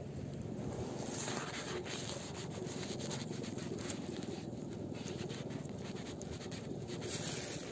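Close handling noise: steady rubbing and scratching of cloth, hands and cord against the microphone.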